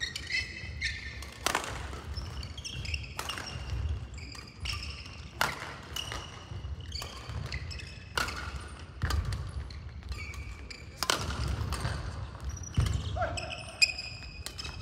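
Badminton rally on a wooden sports-hall court: sharp racket strikes on the shuttlecock every second or two, with shoes squeaking on the floor and footfalls thudding between the hits.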